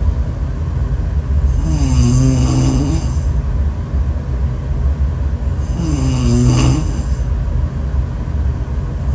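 A person snoring: two long, pitched snores about four seconds apart, each sliding down and back up in pitch, over a steady low rumble.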